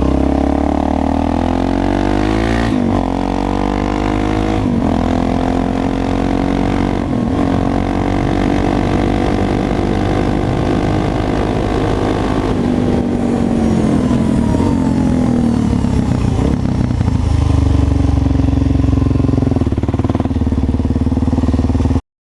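Suzuki DR-Z400 supermoto's single-cylinder four-stroke engine under way: it pulls up in pitch and drops back at gear changes about three, five and seven seconds in, holds steady, then winds down with falling pitch about thirteen seconds in and runs lower near the end.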